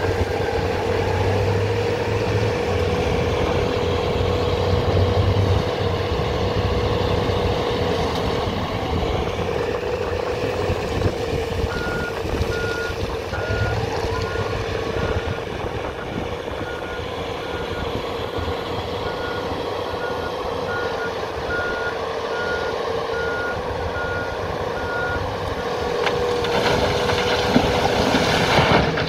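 Heavy diesel engines of a Komatsu HD405 dump truck and a Cat 374F excavator running. In the middle, the truck's reversing alarm beeps steadily, a little over once a second, for about thirteen seconds. Near the end, a bucketload of blasted limestone clatters down into the truck's steel bed.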